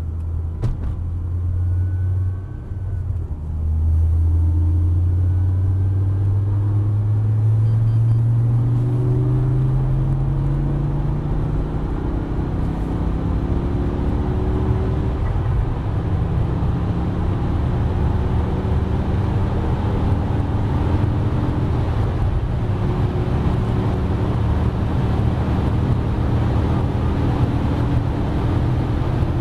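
G-Power M5 Hurricane RR's twin-supercharged V10 under acceleration, its engine note climbing steadily for several seconds after a brief dip near the start, then running steadily at speed with road noise.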